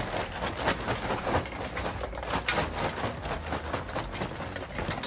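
Lumpwood charcoal tipped from a sack into a barbecue pan: a continuous run of irregular rattling clicks and crackles.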